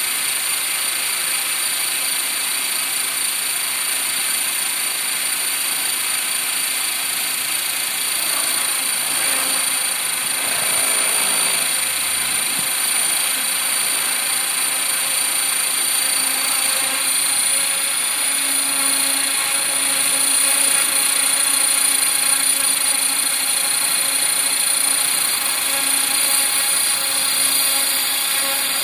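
Align T-Rex 500 ESP electric RC helicopter running: a steady high motor whine over rotor noise and a buzzing vibration, which the owner calls bad and suspects comes from the ESC, throttle or tail.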